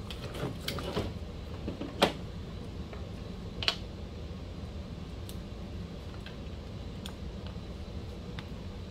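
Scattered small clicks and taps of a hex driver and plastic RC car parts being handled while a screw is taken out of the chassis, the sharpest click about two seconds in, then fainter ticks. A steady low hum runs underneath.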